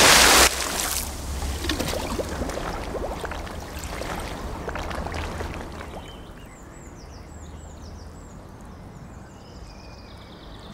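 Rushing water that drops sharply about half a second in, then trickling and gurgling water with small clicks, fading away. In the second half, faint high chirps repeat several times.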